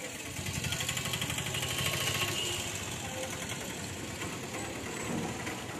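A small engine running, with a fast even pulse. It grows to its loudest about two seconds in and then eases off somewhat.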